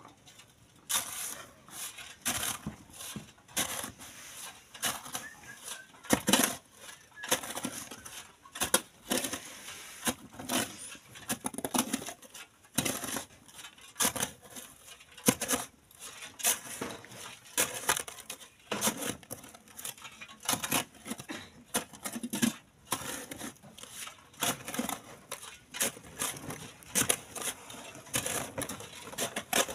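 Metal shovel scraping and chopping into hard-packed sand and gravel, in a long irregular run of sharp strokes about one or two a second.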